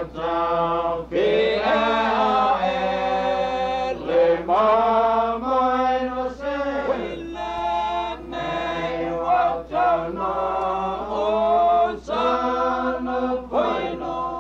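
Voices chanting in long held notes that slide up and down in pitch, in phrases broken by short pauses.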